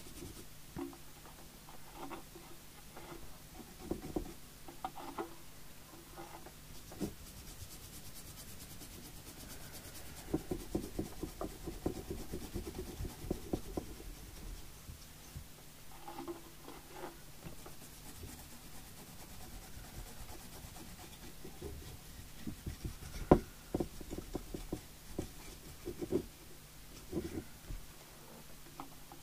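Hands and small tools working on a CB radio's circuit board on a workbench. Intermittent rubbing and scraping with light clicks and knocks, a stretch of steady rubbing about a third of the way in, and one sharp knock about three-quarters of the way through.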